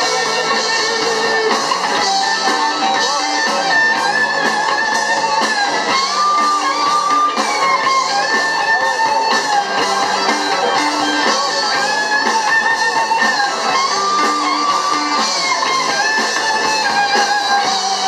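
Live band playing an instrumental passage: a sustained, bending lead melody over guitars, bass and drums, with no vocals.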